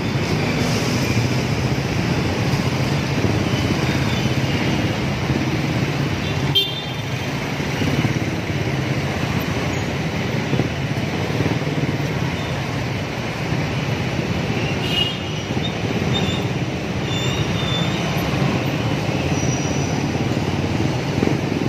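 Motor scooter engine and traffic noise while riding slowly through congested traffic, with a few short horn toots now and then.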